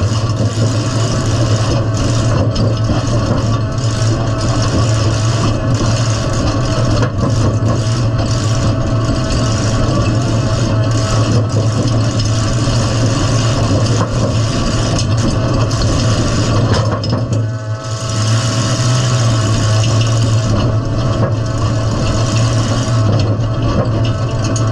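Midsize demolition derby car's engine running at a steady pace, heard from inside the stripped-out cabin; the engine sound drops briefly about two-thirds of the way through, then picks back up.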